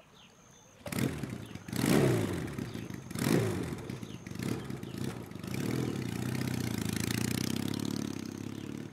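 Small motorcycle engine starting about a second in and revving twice, then running steadily as the bike pulls away.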